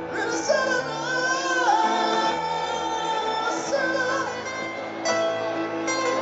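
Live acoustic music: grand piano and plucked upright double bass playing, with singing over them.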